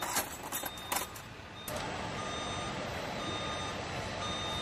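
A vehicle's backup alarm beeping about once a second over steady engine noise. There are a few sharp metallic clicks in the first second.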